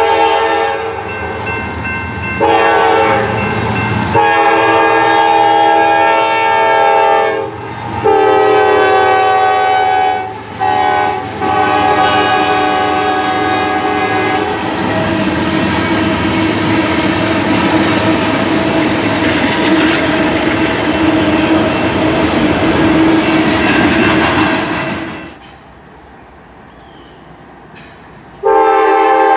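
Diesel freight locomotive air horn sounding a chord in the long, long, short, long grade-crossing pattern, then the train's engines and wheels running past on the rails, fading off near the end. A second horn blast begins just before the end.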